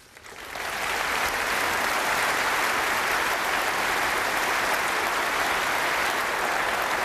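Large audience applauding in a big hall, swelling in over the first second and then holding steady.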